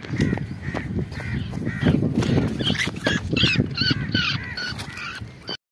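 Footsteps and rustling in dry grass and leaves as a shot bird is reached for and handled, with wild birds calling repeatedly, most busily in the second half.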